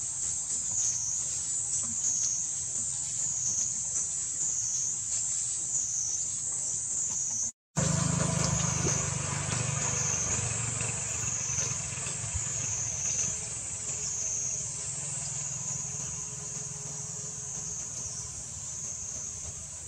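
Forest insect chorus: a steady high-pitched drone that wavers up and down in a slow, regular wave, over a low rumble. The sound cuts out for an instant about a third of the way through.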